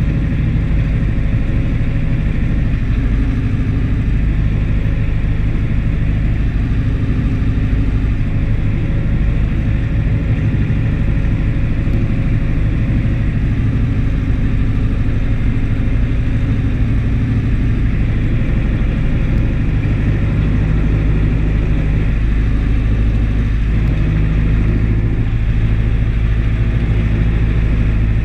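Deutz DX 4.70 tractor's air-cooled diesel engine running steadily under load, heard from inside the cab, while it pulls a PTO-driven Mengele manure spreader at work.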